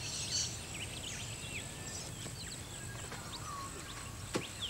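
Outdoor ambience with small birds chirping and calling in short, quick notes over a steady high-pitched whine, and a single sharp knock near the end.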